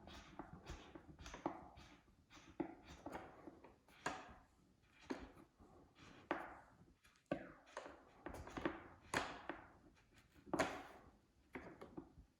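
Faint, irregular taps and knocks of hand work: screws and a screwdriver being handled and driven into the plastic and foam parts of a model jet.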